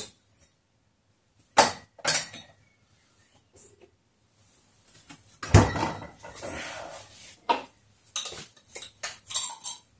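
A small fridge being opened and a glass beer bottle taken out: a few sharp clinks, a heavy thump about halfway through as the fridge door shuts, then a quick run of metallic clicks near the end as a bottle opener works on the bottle's crown cap.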